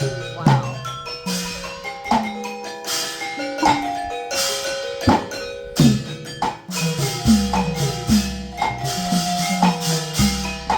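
Live traditional Mon dance music: a percussion ensemble playing struck, ringing xylophone-like mallet notes over drum beats and sharp strikes, at a lively steady rhythm.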